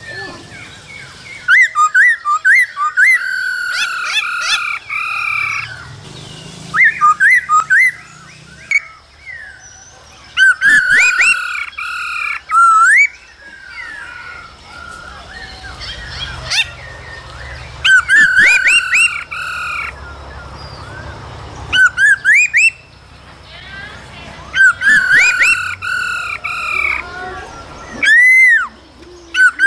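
Black-throated laughingthrush singing in loud, repeated bursts of quick, quavering whistled and warbled phrases. Each burst lasts one to three seconds, with short quieter pauses between them.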